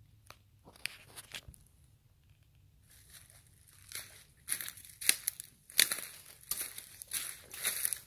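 Footsteps crunching through dry fallen leaves on a forest floor. There are a few light crunches at first, then a steady walking rhythm of louder crunches, about one every half second or so, from about three seconds in.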